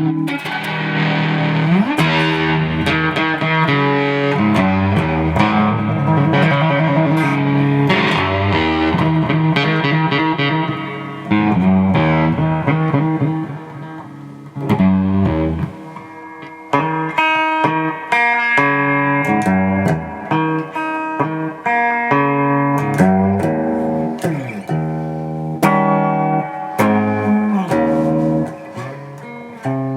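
1986 Fender Contemporary Telecaster electric guitar being played in chords and single-note phrases, with some sliding notes and short pauses between phrases. It is a playing test to check that the repaired pickup selector switch works.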